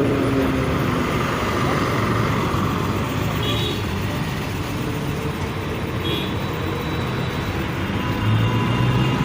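Road traffic with vehicle engines running. Near the end, one engine's note comes up and rises slightly in pitch.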